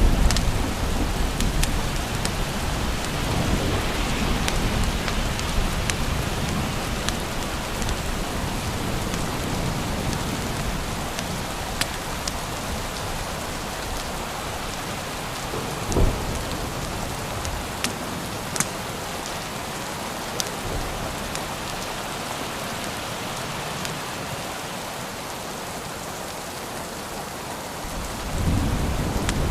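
Steady heavy rain with rolling thunder: a low rumble in the first few seconds, a short deep clap about halfway through and another rumble building near the end. Scattered sharp clicks sound over the rain.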